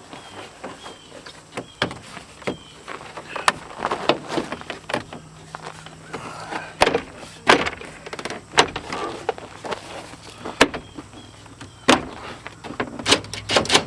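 Irregular knocks, clicks and rattles of a plastic door trim panel being handled and pressed into place on a pickup truck door, with a few sharper knocks.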